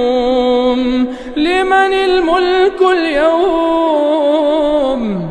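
Quran recitation in a melodic chanted style: one voice holds a long steady note on "al-yawm", then about a second in begins a new phrase with ornamented turns, ending in a falling glide.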